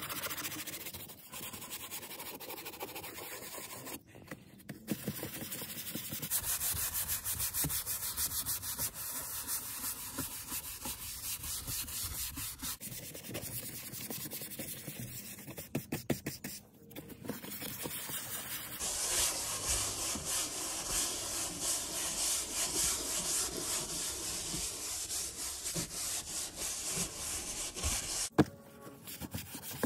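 Detailing brush scrubbing lathered cleaner into a car's textured plastic door panel, a scratchy rubbing of quick back-and-forth strokes. It breaks off briefly about four seconds in, again past the middle, and near the end.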